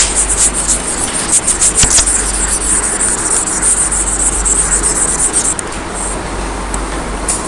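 Steady hiss and low hum, with scratchy crackles in the first two seconds.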